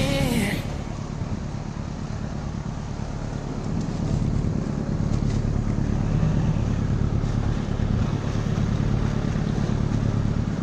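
A boat's engine running with a steady low rumble, mixed with wind noise on the microphone. Music cuts off about half a second in.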